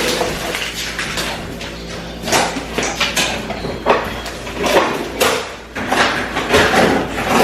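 Irregular clatter and knocks of household items and containers being handled and set down, a sharp knock every half second to a second.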